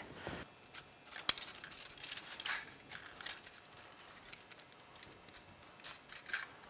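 Light scattered metallic clicks and rattles of an engine's timing chain and a head gasket being handled as the gasket is fitted over the chain onto the cylinder, with a sharper click about a second in.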